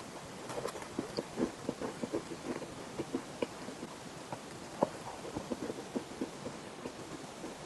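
Chalk being bitten and chewed close to the mouth: a rapid, irregular run of crisp crunches, several a second, with one sharper crack about five seconds in.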